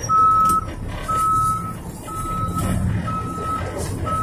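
Truck's backup alarm beeping about once a second as the dump truck reverses, with the truck's engine running underneath.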